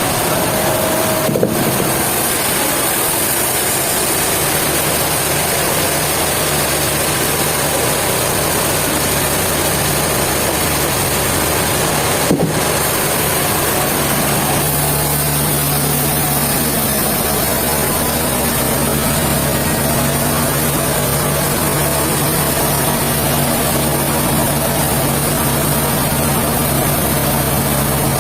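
An engine running steadily, with two short knocks, one about a second in and one near the middle. A steadier low hum sets in about halfway through.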